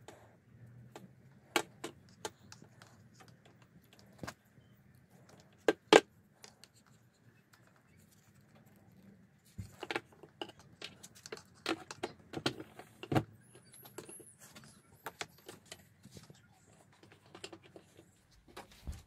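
Scattered sharp plastic clicks and knocks of black irrigation hose being worked onto a connector by hand, busier in the second half. A few quick high chirps sound in the second half.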